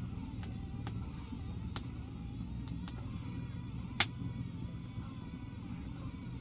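Open wood fire crackling under a cooking pot: scattered sharp pops over a steady low rumble, with one loud pop about four seconds in.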